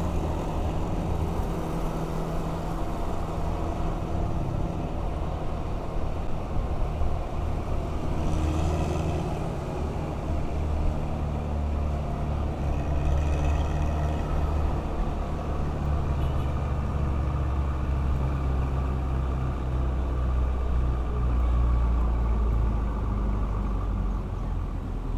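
Motorcycle engine running steadily while riding slowly in city traffic, with road noise, heard from a microphone on the bike. A bus and other traffic run close by, and two brief higher-pitched sounds come about a third of the way in and about halfway.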